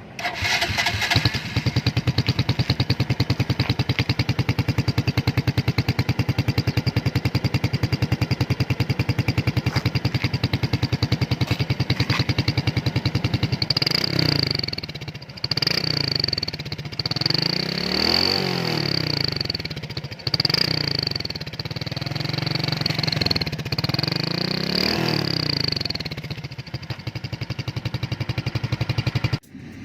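Suzuki Raider J 115 Fi's single-cylinder engine idling steadily through an exhaust fitted with a DIY whistle tip, then revved about six times in the second half, each rev rising and falling with a high whistle from the exhaust.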